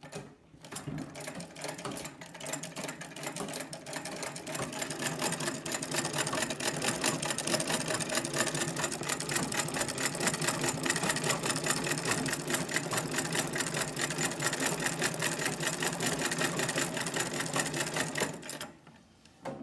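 1900 New Home vibrating-shuttle treadle sewing machine stitching, freshly cleaned and oiled and running freely: a fast, even clatter of stitches that grows louder over the first few seconds as the treadle gets up to speed, holds steady, and stops shortly before the end.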